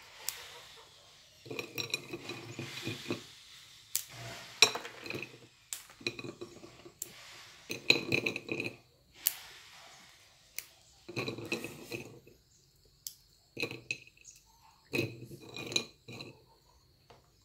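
Crisp sugar snacks being snapped into pieces by hand and dropped onto a ceramic plate: crunchy cracking in short bursts every second or two, with clinks of the pieces against the plate.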